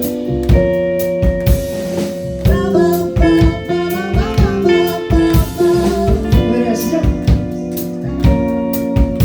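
Live band playing an instrumental passage: held chords over a steady drum-kit beat, with guitar.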